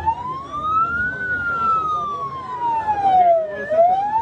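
Vehicle siren in a slow wail: the tone climbs to its peak about a second in, falls slowly for about two and a half seconds, then starts climbing again near the end.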